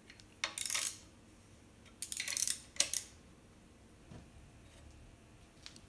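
Short metallic clicks and scrapes from hand tools being handled against a steel jig on an engine block. They come in three brief clusters, about half a second in, at two seconds and just before three seconds, with only a low background between them.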